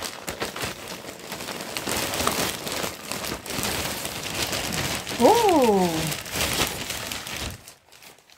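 Large plastic bags crinkling and rustling as they are handled and pulled open. About five seconds in there is one short call that rises and then falls in pitch, and the crinkling stops about a second before the end.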